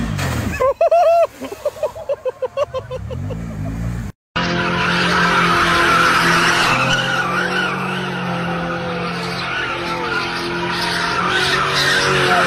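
A side-by-side UTV's engine revving in quick rises and falls. About four seconds in it cuts to a pickup truck spinning donuts on pavement: its tyres squeal steadily over a steady engine note.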